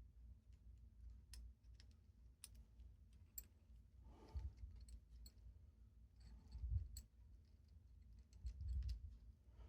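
Faint, scattered metallic clicks and a few soft knocks from a Commando padlock's shackle and armored guard being worked by hand, trying to line them up so the lock will turn.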